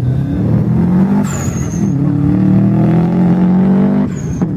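Turbocharged flat-four engine of a first-generation Subaru Impreza race car at full throttle as it passes, its note climbing through the gears. Each upshift, about a second in and again near the end, brings a short break in the note and a brief high, falling whistle.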